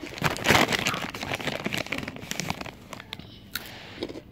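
Plastic Takis chip bag crinkling as a hand rummages in it for chips. The crackling dies down near the end.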